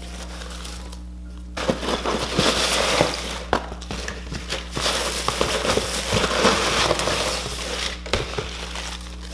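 Shredded crinkle-cut paper packing filler rustling and crackling as hands dig through it and lift items out. It starts about a second and a half in and dies down near the end.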